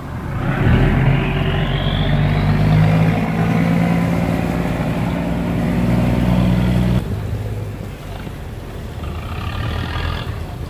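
Barge engine revved hard, rising in pitch as it opens up and then running loud and steady while the propeller churns the water. It cuts off suddenly after about seven seconds, leaving a quieter boat engine running.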